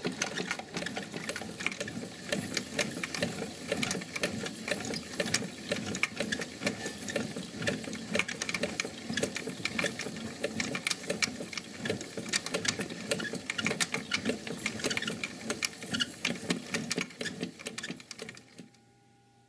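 Wilesco D-20 miniature steam engine running, its crank and flywheel turning fast with a rapid, even mechanical clatter that drops away near the end.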